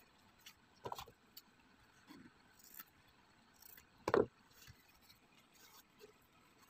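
Hands handling a cardboard piece while wrapping velvet fabric around it: faint scattered taps and knocks, the loudest a little over four seconds in and another about a second in.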